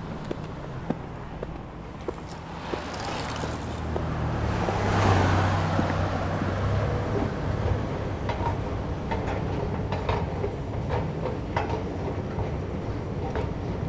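Mixed foley sound effects: a steady low rumble with a rushing swell that builds to a peak about five seconds in and eases off, then a run of irregular sharp clicks and knocks over the rumble.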